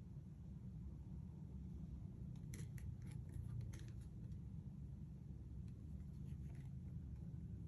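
A quick run of light clicks and snaps, then a few fainter ones, from handling an electric airsoft Thompson M1928 replica, over a low steady hum.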